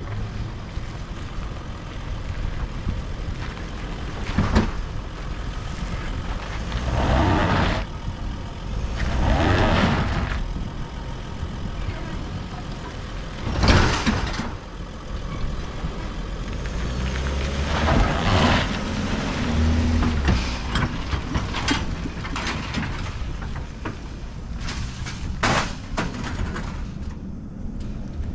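Mercedes Sprinter 4x4 van's engine pulling a loaded trailer up a rough dirt slope, a low rumble with tyre-and-gravel noise that swells several times. A series of sharp knocks and rattles comes in the second half as the trailer bounces over the bumps.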